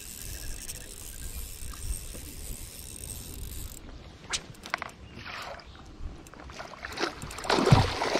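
Spinning reel being wound in against a hooked trout. From about halfway the fish splashes and thrashes at the water's surface, with the loudest splashing near the end.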